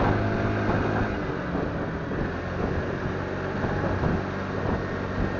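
Vehicle engine running at a steady pace while driving, with road and wind noise.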